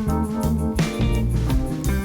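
Background music: an upbeat guitar-led instrumental with bass and a steady beat.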